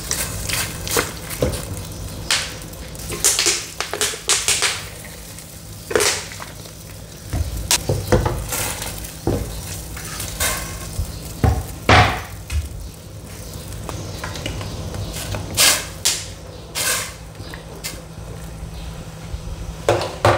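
Kitchen clatter at a stainless steel stockpot: irregular sharp knocks and clinks of a wooden cutting board and utensils against the pot as sliced pork sausage goes into the steaming broth, over a steady low hum. The loudest knock comes about twelve seconds in.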